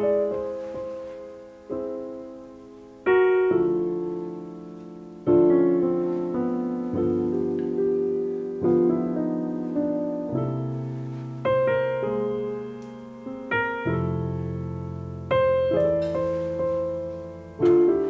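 Solo piano music: slow chords struck every second or two, each left to ring and fade.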